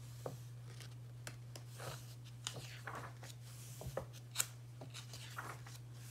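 Pages of a paperback book being turned and smoothed down by hand: faint, scattered paper rustles and soft taps, one a little louder about four seconds in, over a steady low hum.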